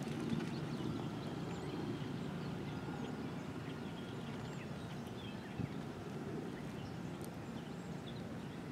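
Quiet outdoor background: a steady low rumble with faint, scattered high chirps of small birds, and one soft knock about five and a half seconds in.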